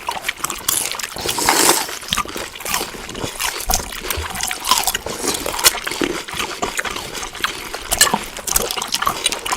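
Close-up wet chewing: mouth smacking and squelching with many quick sharp clicks, in an uneven rhythm.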